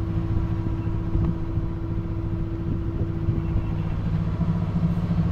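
Sailboat's auxiliary engine running steadily under way while motor sailing, a low even drone. A higher steady hum in it stops about four seconds in.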